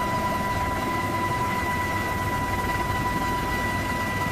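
Steady mechanical drone and hiss with a constant high whine held on one pitch, unchanging throughout.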